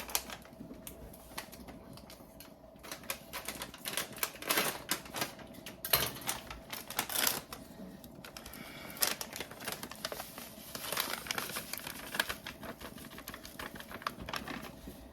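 A package of Ore-Ida potatoes being opened and emptied into a cooking pot: an irregular run of clicks, crinkles and rattles that comes in clusters.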